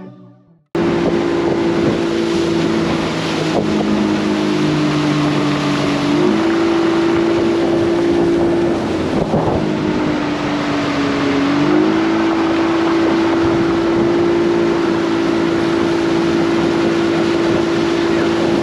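Outboard motor of a small aluminium tinny running at steady speed, starting abruptly under a second in, its pitch dipping slightly twice and picking up again. Wind rushes on the microphone throughout.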